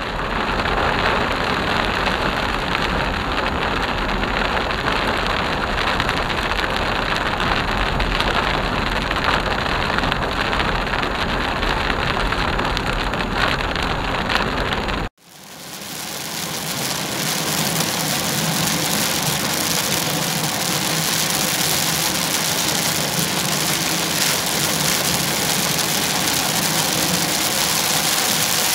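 Rain on a moving car and its tyres on the wet road, heard from inside the cabin as a steady hiss. About halfway the sound cuts out for an instant and fades back in with a brighter, thinner tone.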